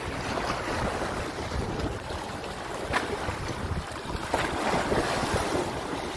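Sea water sloshing and lapping against rocks and the metal steps of a ladder, with wind buffeting the microphone. Two short, sharper splashes come about three and four seconds in as a swimming dog reaches the ladder and starts to climb out.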